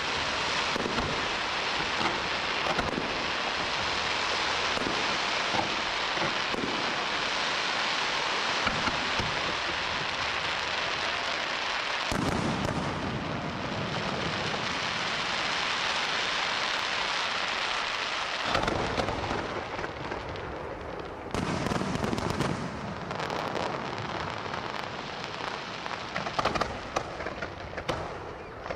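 Aerial fireworks display: a dense, continuous crackle of bursting shells and stars, with a deeper rumble through the middle. It thins out to scattered pops near the end.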